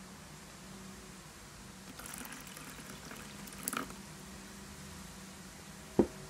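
Water poured into a food processor bowl of blended strawberries: a soft trickle lasting about two seconds, ending about four seconds in. A single sharp click near the end.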